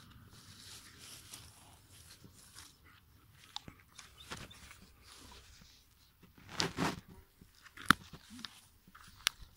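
Willow branches and leaves rustling as they are handled, with a louder rustle partway through. About eight seconds in, pruning shears snip sharply through a willow stem, and a second sharp snip comes near the end.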